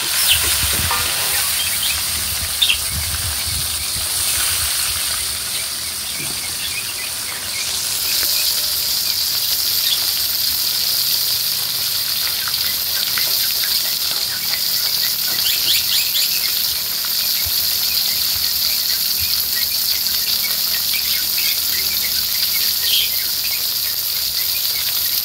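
Whole fish frying in oil in a wok, sizzling steadily. A spatula scrapes and knocks against the wok in the first few seconds as the fish is turned, and the sizzle grows louder about eight seconds in.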